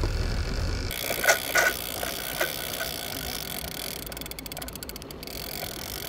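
Boat noise: a low engine rumble that cuts off suddenly about a second in, then a steady hiss with a few sharp clicks and knocks.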